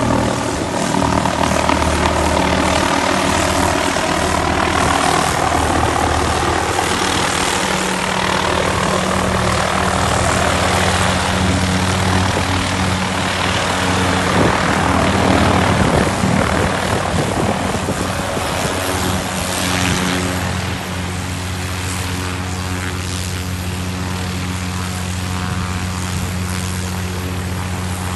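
Helicopter running close by, its rotor and engine loud and steady. The pitch shifts during the first half as it manoeuvres, and it settles a little quieter and steadier about two-thirds of the way in.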